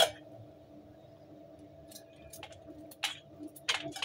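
Small knife cutting almonds by hand over a steel plate. From about halfway in there are a few short sharp clicks of blade and nut pieces hitting the metal, over a faint steady hum.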